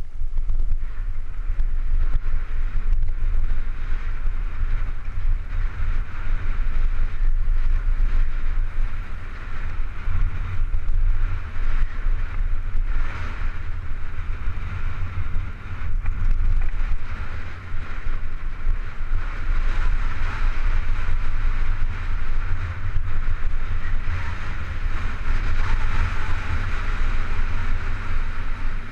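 Wind buffeting the microphone of a mountain bike's camera with the steady rumble of the tyres rolling fast over a dirt trail, a continuous noisy rush without distinct events.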